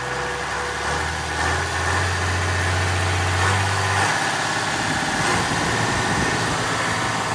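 John Deere 6615 tractor's diesel engine running, its speed set through a newly fitted cable throttle. The steady hum turns rougher and less even about four seconds in.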